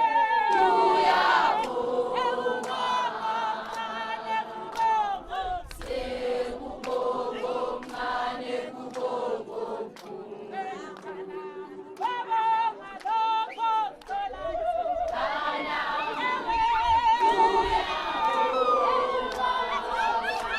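A group of people singing together without instruments, many voices overlapping, with held wavering notes and short sharp sounds running through it.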